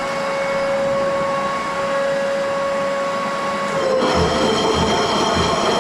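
Electric concrete floor grinder running together with its dust-extraction vacuum, a steady motor whine over a rough grinding noise, grinding tile adhesive off a concrete floor. About four seconds in the whine dips slightly and the sound gets louder and rougher, with a few low knocks.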